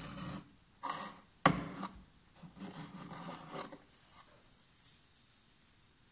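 A rod prodding and scraping at a squirrel's nest of dry grass packed into a tractor's cab frame: irregular knocks of the rod against the metal, the sharpest about a second and a half in, and rustling of the nesting material as it is dragged out.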